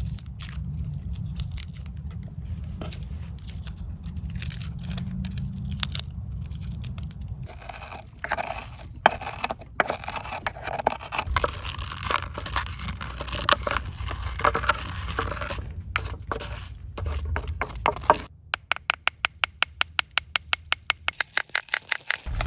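Cooking preparation by hand: irregular scraping and clicking of utensils, then about two-thirds of the way in, a quick even run of sharp taps, about nine a second, for a few seconds, over a low steady rumble.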